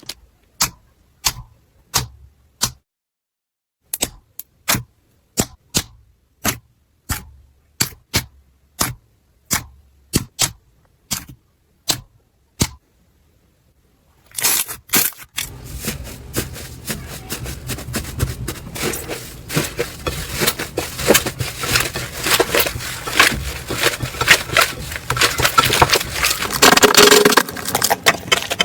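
Slime being played with by hand: first a series of sharp single pops or clicks, one to two a second with silence between them. About halfway through comes a continuous dense crackling and crunching as the slime is squeezed and worked.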